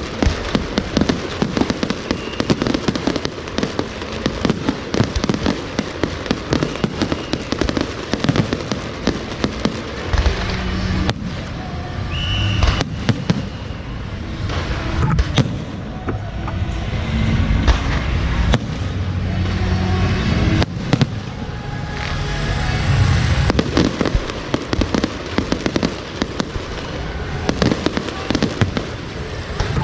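Fireworks and strings of firecrackers going off in a dense, continuous barrage of rapid bangs and crackling, with louder reports scattered through it.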